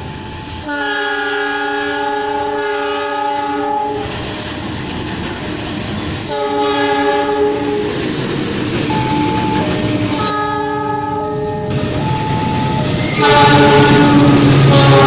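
Indonesian diesel locomotives sounding multi-tone air horns over the rumble and wheel clatter of passing trains. There is a long chord blast about a second in and a shorter one around six seconds. Several short blasts follow, then a final, louder blast near the end as a train passes close.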